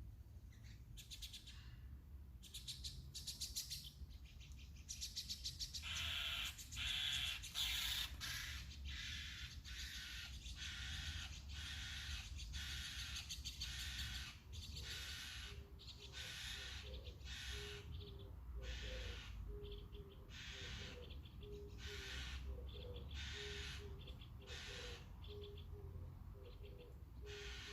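Birds calling: a series of harsh, crow-like calls about once a second, and from about halfway a low hooting note repeated in short runs.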